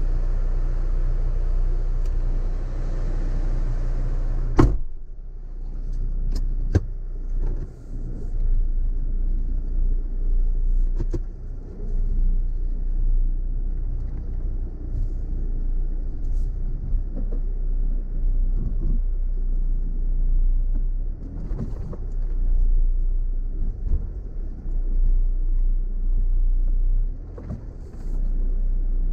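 Off-road car's engine running low and steady while the vehicle crawls over a rough, rocky track, with scattered knocks and rattles and one sharp thump about four and a half seconds in.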